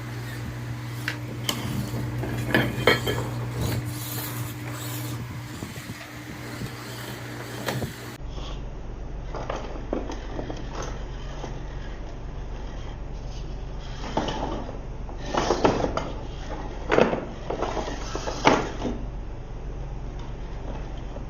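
Handling noise: scattered clicks, knocks and rubbing of small hard objects being moved about, over a steady hum. A cluster of sharper knocks comes near the end.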